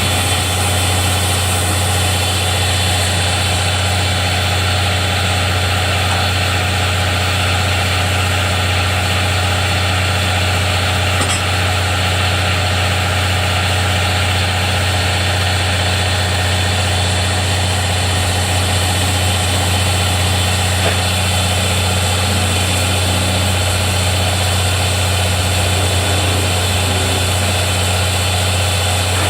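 Steady, unchanging hum of an idling engine with a strong low drone.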